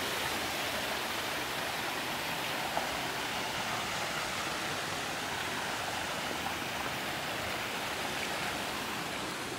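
Steady rush of running stream water over rocks.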